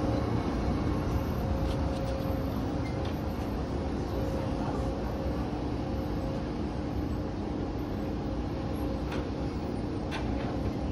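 Morgantown PRT pod, a rubber-tyred electric guideway vehicle, running along its track: a steady running rumble with a low, even motor hum, and a few faint ticks near the end.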